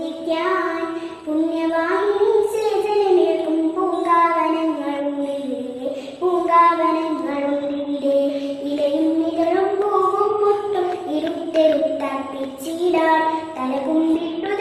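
A young girl singing solo, holding long notes that slide up and down in pitch, with short breaks between phrases.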